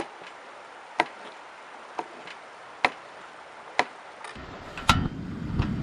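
Kitchen knife quartering mushrooms on a plastic cutting board: a sharp knock of the blade striking the board about once a second. Near the end a steady lower noise comes in, with one more knock.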